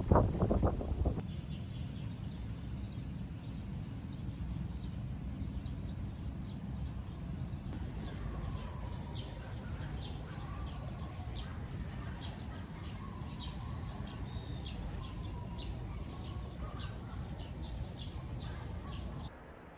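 Outdoor ambience: birds chirping over a steady low rumble, with a brief louder burst right at the start. From about eight seconds in, the chirps come thick and fast, with a steady high insect drone behind them.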